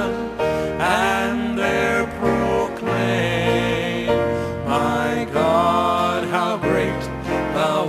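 Gospel music: a voice singing a slow, sliding melody over sustained instrumental backing.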